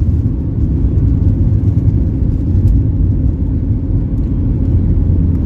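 Cabin noise of a Boeing 737-8200 on its takeoff roll: the CFM LEAP-1B engines at takeoff thrust and the wheels rolling fast on the runway make a loud, steady, deep rumble, heard from a window seat over the wing.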